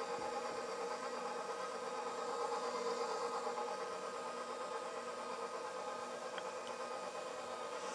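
KitchenAid stand mixer running steadily at low speed, about speed 2, with the whisk attachment whipping frosting: an even motor hum.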